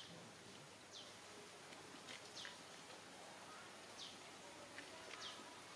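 Near silence with faint outdoor ambience: a light steady hiss and short, high chirps that slide downward, repeating irregularly about once a second.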